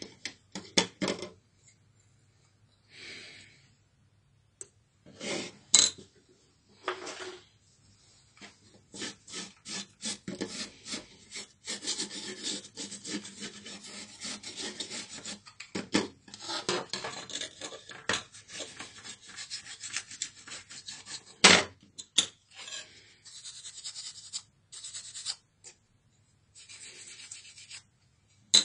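Rapid back-and-forth rubbing and scraping on a laptop's CPU and aluminium heatsink plate as old thermal paste is wiped off. It comes in short scattered strokes at first, then runs dense and busy for about twelve seconds, with one sharp knock about three-quarters of the way through.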